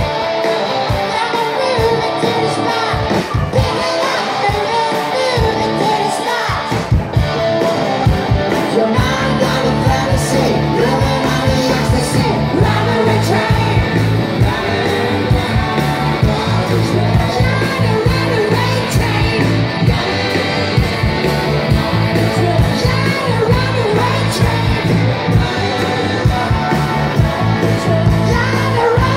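Live band playing loud rock-style party music with singing and electric guitars; the bass gets heavier about nine seconds in.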